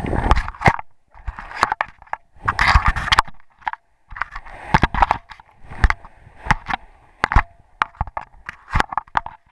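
Camera handling noise: the microphone rubbing and scraping against clothing, with irregular clicks and knocks and short rustling bursts.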